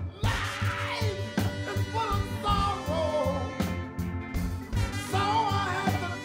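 A male soul singer singing into a microphone over a live band with drums, a soul song played through a sound system.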